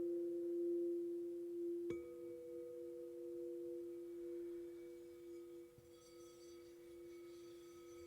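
Quartz crystal singing bowls ringing with two steady, pure tones, one lower and one a little higher. A bowl is struck about two seconds in and again faintly near the end, while the ringing slowly fades.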